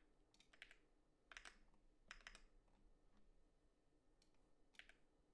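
Faint computer keyboard typing: keystroke clicks in a few short, irregular clusters.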